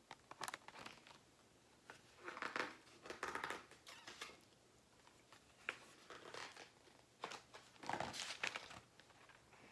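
Quiet paper rustling from a picture book being handled and its pages turned, in irregular bursts with a few light clicks and taps.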